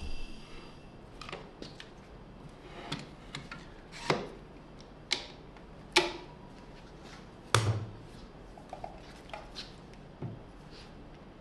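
Irregular sharp clicks and knocks from a one-handed bar clamp being fastened on a round wooden tabletop and tools being handled on a wooden workbench, with one heavier knock a little past halfway. A steady high whine cuts off within the first second.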